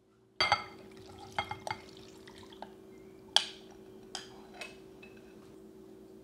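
Cubes of green aiyu jelly being tipped from a small glass bowl into a larger glass mixing bowl, with several sharp glass clinks and soft wet plops. The loudest clink comes about three and a half seconds in.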